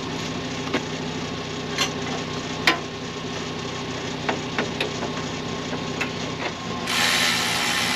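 An engine idling steadily, with a handful of sharp clicks and light knocks from hand tools. A rush of hiss lasts about a second near the end.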